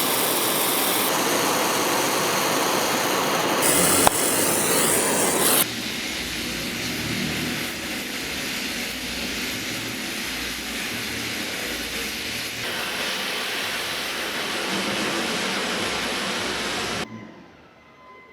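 Oxy-acetylene torch burning with a steady hiss from a neutral flame while gas welding steel. It is louder for the first five seconds or so, settles to a slightly lower steady level, and cuts off sharply near the end.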